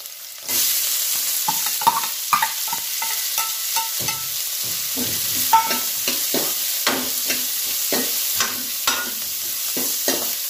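Chopped onion going into hot ghee in a metal kadhai: a sudden loud sizzle starts about half a second in and goes on frying steadily, while a spatula scrapes and stirs against the pan in many short strokes.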